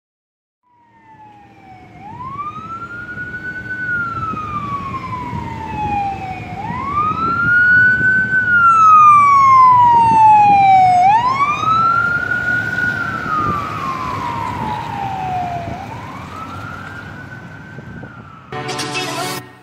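Ambulance siren on a slow wail, rising and then falling in long sweeps about every four and a half seconds, over traffic rumble. It grows louder as the ambulance approaches, is loudest in the middle as it passes, then fades as it drives away. Music comes in near the end.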